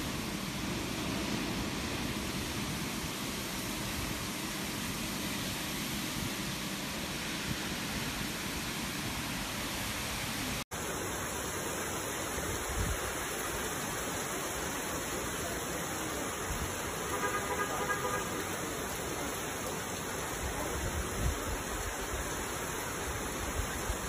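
Heavy rain and wind in a storm, a steady rushing hiss. About ten seconds in it cuts out for an instant and a second downpour takes over, just as steady.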